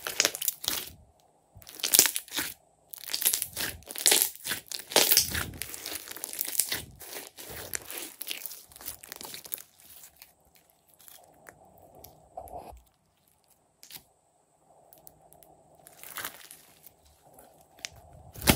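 Hands kneading and squeezing a large lump of glossy slime: irregular runs of sticky clicks and pops, thickest in the first several seconds, sparse and fainter through the middle, with another burst near the end.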